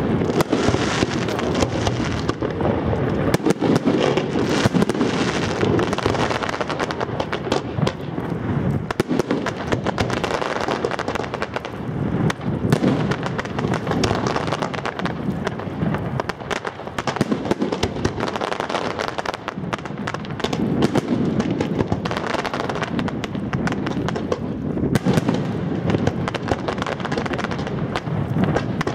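Fireworks display: a dense, continuous barrage of shell bursts and crackling, many sharp bangs and pops overlapping without pause.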